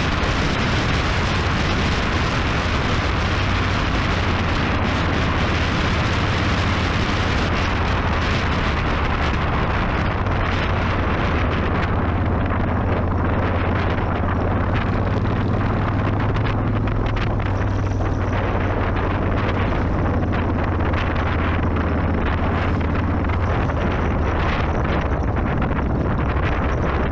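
Wind rushing over the microphone of a moving motorcycle, with the engine running steadily underneath at cruising speed.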